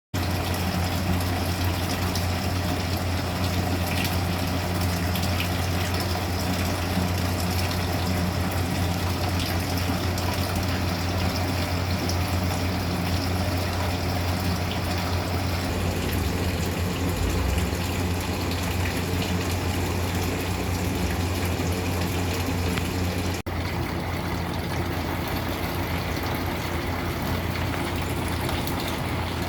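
Steady low machine hum with an even hiss over it, unchanged in character throughout apart from a brief break about 23 seconds in.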